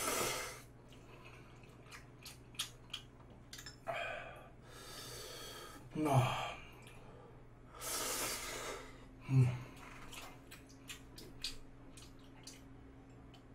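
A man eating spicy instant noodles: slurping them up in a few noisy pulls, chewing with small wet mouth clicks, and breathing out hard with a couple of short grunts against the heat.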